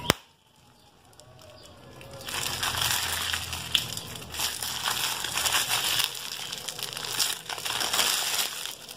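Hands squeezing and kneading a slime-filled balloon in a thin plastic wrapper: crackling, crinkling plastic with squishing slime, starting about two seconds in after a single sharp click and a short lull.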